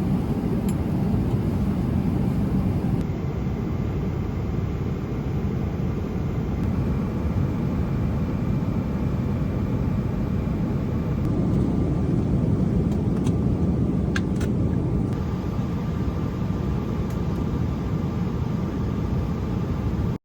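Steady low rumble of an airliner cabin in flight: jet engine and airflow noise, shifting abruptly a few times, with a few faint clicks.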